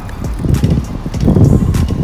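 Riding a bicycle: wind buffeting the microphone as a loud, uneven low rumble, with light clicks and rattles.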